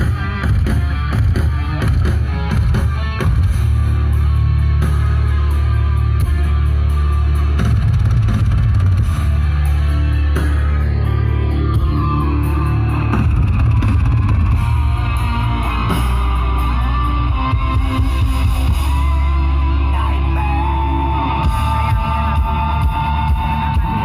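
Loud music with very heavy, steady bass played through large outdoor speaker stacks in a sound-system test.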